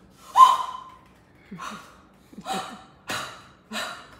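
A woman's short, breathy gasps and half-whispered sounds, about five in four seconds, the first and loudest about half a second in.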